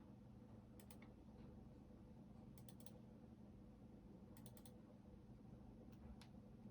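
Computer keyboard typing, faint: short bursts of two to four keystrokes about every one and a half to two seconds, over a low steady hum.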